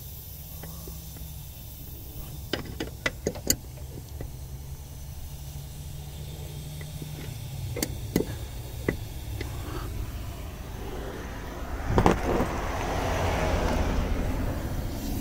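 Open-end wrench clicking against the A/C pressure switch fitting on a 2008 GMC Sierra 1500 as it is tightened: two short clusters of sharp metallic clicks over the steady hum of the running engine. About three quarters of the way in a knock is followed by a steady hiss of refrigerant still leaking past the pressure switch, which is not yet sealed.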